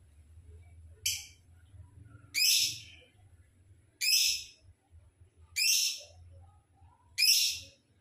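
Lovebird calling: five short, loud, harsh high-pitched calls, one about every second and a half.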